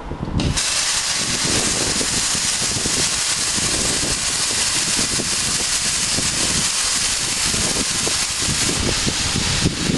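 Fragram Cut 40 plasma cutter's torch firing and cutting metal plate: the arc starts suddenly about half a second in, then a loud, steady hiss of the plasma arc and air.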